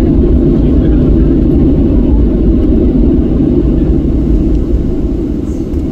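Cabin noise of a Boeing 737-700 taxiing: a steady low rumble from its CFM56 turbofan engines at taxi power, easing a little near the end.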